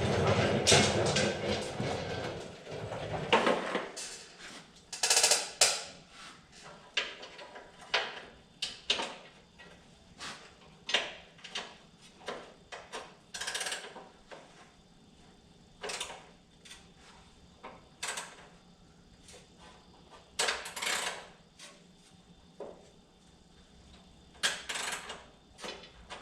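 Hand tools and loose metal and plastic parts clicking and knocking irregularly while parts are worked loose from a riding mower's dash and wiring, after a stretch of rustling and handling noise at the start.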